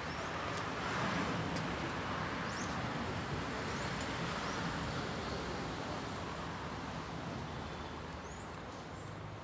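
Street traffic: a passing vehicle's noise swells about a second in and slowly fades, with a few short high chirps above it.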